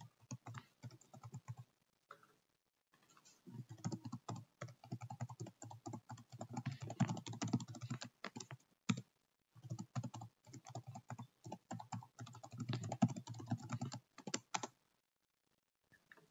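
Typing on a computer keyboard: two long runs of quick keystrokes with a pause of about a second between them, as a passphrase is typed and then typed again to confirm it. The typing stops about a second and a half before the end.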